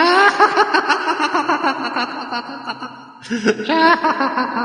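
A man's voice imitating a rooster's crow: a call that sweeps up in pitch and is held wavering, then a second, shorter crow about three seconds in.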